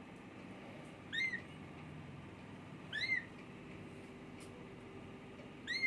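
A very young kitten mewing three times, each a short, high-pitched mew that rises and falls, about two seconds apart: a baby kitten calling for its mother.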